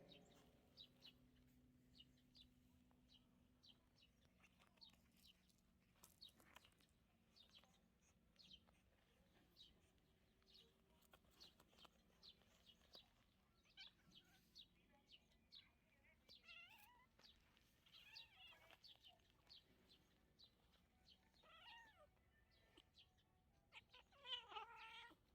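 Kittens meowing faintly: a handful of short calls in the second half, the loudest near the end, over faint quick high ticks throughout.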